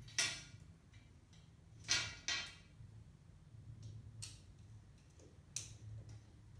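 Sharp metal clicks and clinks, about five in all, as washers and screws are fitted into a steel TV wall-mount bracket held against the wall. The loudest come just after the start and twice about two seconds in, over a steady low hum.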